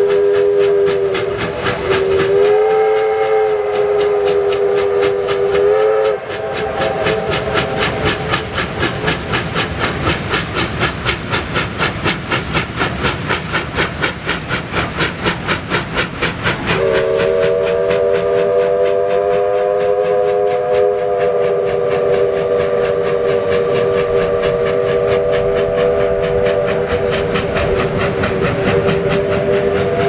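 Whistle of a double-headed pair of Victorian Railways R class Hudson steam locomotives, held as a steady chord that shifts pitch briefly about two seconds in and stops about six seconds in. The quick, even exhaust beats of the working locomotives then carry on alone until the whistle sounds again about seventeen seconds in and is held on.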